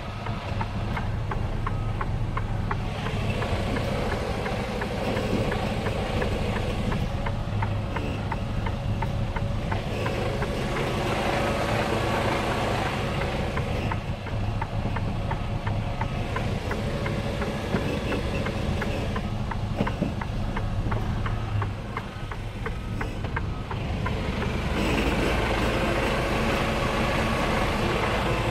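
The 10.7-litre six-cylinder diesel of a Mercedes-Benz Antos 1833 truck running at low speed, heard from inside the cab as the truck creeps along, with a steady low hum that grows a little louder near the end.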